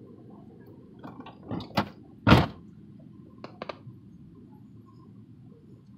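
A few sharp knocks and thumps over a steady low rumble: one about a second in, two more shortly after, the loudest about two and a half seconds in, and a quick double knock about a second later.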